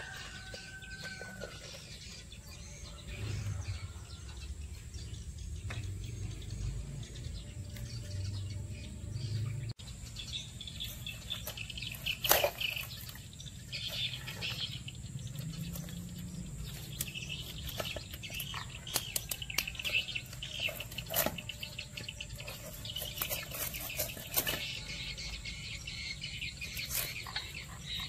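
Birds chirping in the background, with scattered sharp clicks and knocks from a knife working on mud crabs on a wooden board. The loudest knock comes about twelve seconds in.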